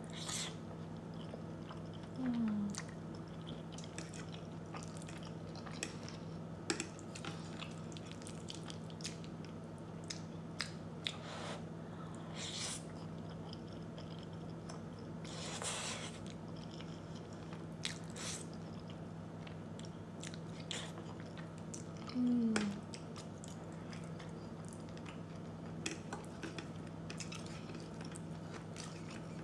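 Close-up mouth sounds of a person eating creamy shrimp linguine: soft chewing with wet lip smacks and clicks, and a few longer slurps of the noodles. Two short low hums from the eater, about 2 s in and again about 22 s in, over a steady low hum.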